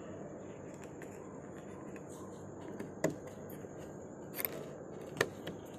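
A few light clicks and taps from hands handling the car door's plastic window trim, three sharper ones in the second half, over a steady background hiss with a faint high steady whine.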